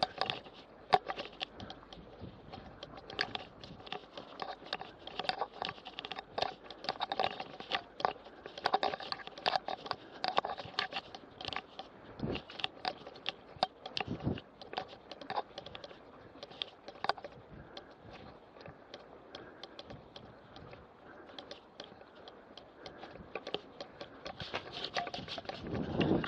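Mountain bike rolling over a rough, overgrown track: a dense patter of clicks, rattles and crackles from the bike and from tall grass and weeds brushing against it. Wind noise on the microphone rises near the end as the bike speeds up on an open dirt road.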